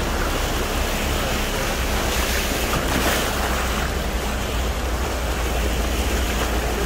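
Flash-flood water rushing fast through a street, a steady heavy wash with a low rumble underneath.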